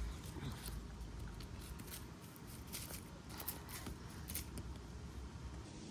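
Faint rustling and a few small snaps and crackles of plant leaves being handled and torn off by hand.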